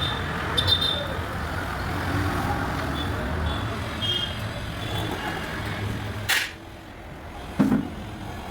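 Road traffic noise: a steady rumble of passing vehicles with a few short high tones. It cuts off at a sharp click about six seconds in, and after that it is much quieter apart from one dull thump.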